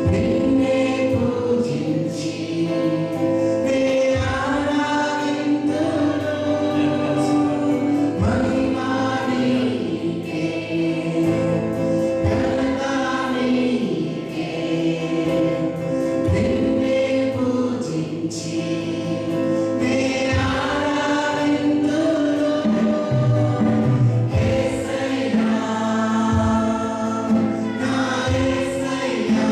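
A group of voices singing a gospel worship song over sustained instrumental accompaniment, the music continuing without a break.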